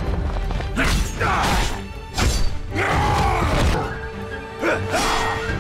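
Dramatic soundtrack music from an animated fight scene, with several whooshes and sharp hits laid over it.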